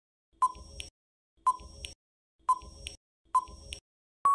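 Quiz countdown timer sound effect: four evenly spaced ticks, about one a second, each a sharp click with a short ringing tone.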